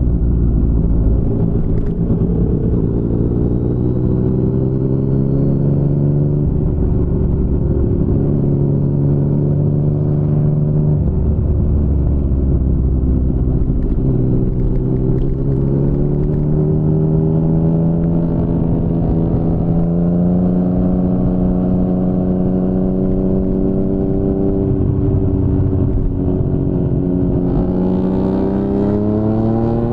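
2019 Yamaha MT-09's three-cylinder engine through an Akrapovic full-system exhaust, heard from the rider's seat under way. The engine note eases off, then climbs slowly with the throttle through the middle. It drops back briefly, then rises quickly near the end as the bike accelerates hard.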